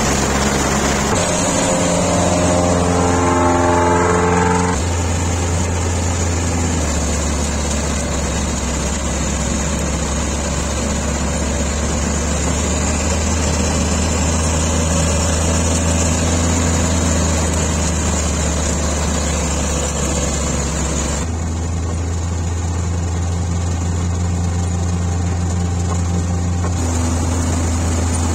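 Laverda combine harvester running steadily, a constant low engine hum with the noise of its threshing and cutting machinery; the sound shifts slightly a few times. About two seconds in, a short run of pitched notes lasting about three seconds sounds over the machine.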